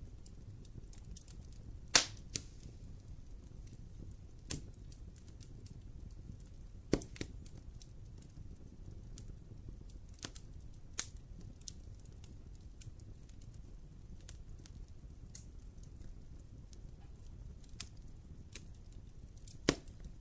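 Wood fire burning in a fireplace: a low steady rumble with scattered crackles and a few sharp pops, the loudest about two seconds in, another about seven seconds in, and one near the end.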